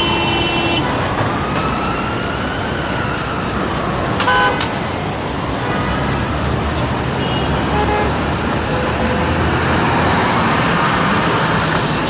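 Busy city street traffic: a steady rush of engines and tyres, with car horns honking. There is a short honk at the start, a louder one about four seconds in, and a few faint toots later. A siren wails faintly, rising and falling over the first few seconds.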